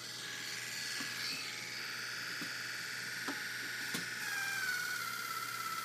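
Rotadent rotary electric toothbrush switched on and running with a steady high-pitched whine. Its pitch drops a little about four seconds in, with a few faint clicks along the way.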